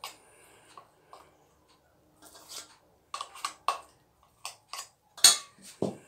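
Metal spoon scraping and tapping against a plastic arancini mould and a stainless steel bowl as rice is spooned in and packed down: a string of short scrapes and knocks, the loudest about five seconds in, with a duller knock near the end.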